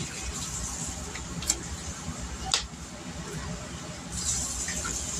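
Two sharp clicks, then granulated garlic shaken from a plastic spice shaker into a small glass bowl, heard as a short granular hiss about four seconds in.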